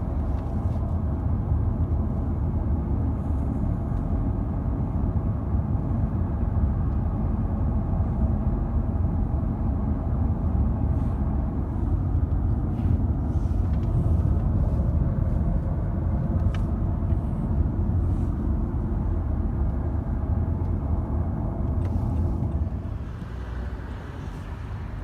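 Steady road and engine rumble inside a moving car, quieting somewhat near the end.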